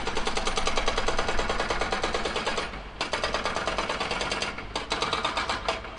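Tractor-mounted hydraulic breaker (jackhammer) hammering in rapid, even blows, with brief pauses about three seconds in and twice more near the end.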